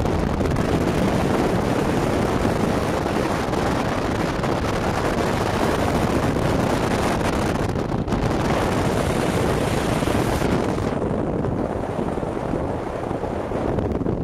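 Wind rushing over the microphone of a camera carried on a moving motorcycle, a steady loud noise with the ride's road and engine sound mixed in. The highest hiss eases about eleven seconds in.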